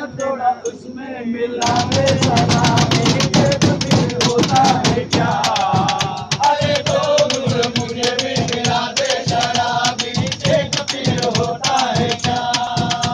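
A group of men singing together in a train compartment while beating a fast rhythm with their hands on its metal walls and overhead luggage rack.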